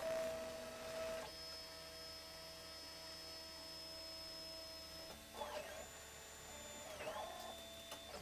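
3D printer's stepper motors whining as the build plate moves on its lead screw over a steady fan hum. A steady whine for a few seconds is followed, about five seconds in, by tones that rise, hold and drop as the axes speed up and slow down.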